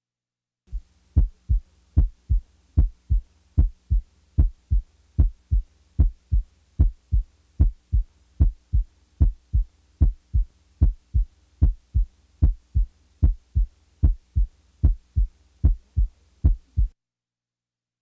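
Heart sounds as heard through a stethoscope: a steady lub-dub rhythm of a little over one beat a second, each beat a loud first heart sound (S1) followed by a softer second heart sound (S2). This gives the impression of coming down the musical scale. It starts about a second in and stops about a second before the end.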